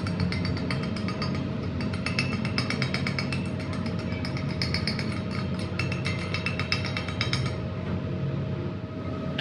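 Rapid, repeated metal-on-metal strikes on steel, ringing, over a steady machine hum; the striking stops about three quarters of the way through.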